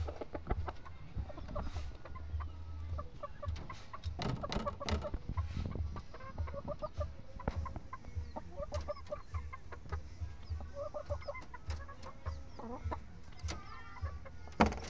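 Chickens clucking in short, scattered calls, with sharp clicks and knocks among them.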